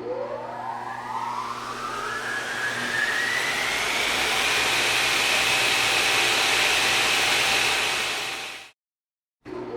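A machine's motor spinning up: a whine rising steadily in pitch over about four seconds over a rushing noise, then holding at a steady high whine. It cuts out near the end, and after a brief silence starts winding up again.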